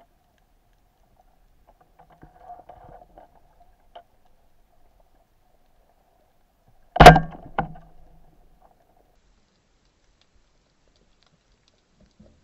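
A single loud, sharp knock about halfway through, followed about half a second later by a weaker knock, with faint scattered crackling before it.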